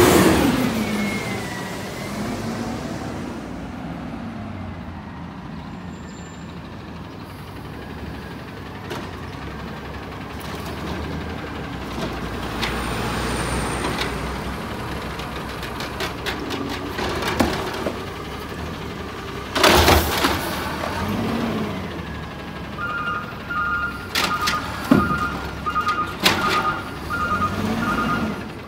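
Peterbilt 320 natural-gas automated side-loader garbage truck working curbside carts: the engine revs and settles, loud bangs about two-thirds through as a cart is dumped into the hopper, then a run of knocks with a repeating two-tone beeping alarm near the end.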